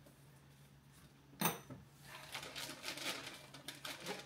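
A sharp click about a second and a half in, then faint light clinks and rattles of small hard objects over a low steady hum.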